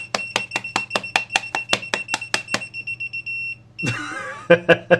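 Bside S11 multimeter's non-contact voltage (NCV) detector beeping fast, about six high beeps a second, for roughly three and a half seconds. It is reacting to a bare hand as if the hand were live. A short laugh follows near the end.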